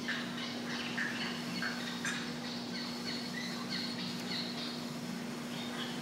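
A flock of aquatic birds calling over one another: many short, overlapping calls and squawks, with a steady low hum underneath.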